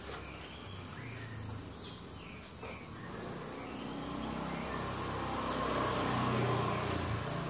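A steady high insect buzz, with a vehicle engine passing: its rumble builds from about three seconds in, is loudest near the end and then eases off.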